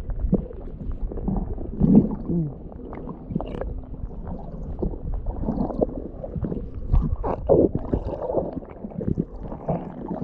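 Shallow river water sloshing and splashing irregularly around the legs of someone wading.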